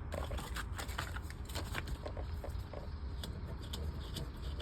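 Paper leaflets and packaging being handled: irregular small rustles and taps over a steady low hum.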